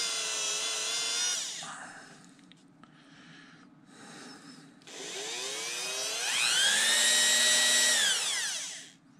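Dremel rotary tool spinning a wooden-stick cotton swab charged with green jeweler's rouge, polishing the bore of a baitcast reel's pinion gear. Its whine winds down after about a second, stops for a few seconds, then spins back up, runs steadily and winds down again near the end.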